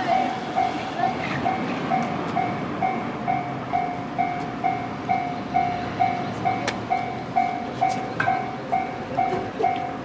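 Japanese level-crossing warning bell ringing, a loud electronic ding repeating steadily a little under twice a second to warn of an approaching train. Two sharp clicks are heard in the second half.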